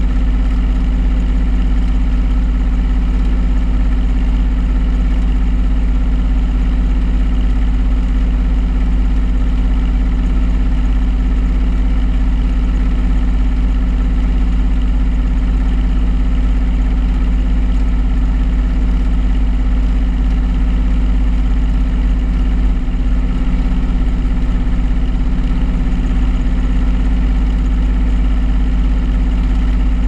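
Washing machine drum spinning at speed during its spin cycle, heard from inside the drum: a loud, steady low rumble with a constant hum that does not change.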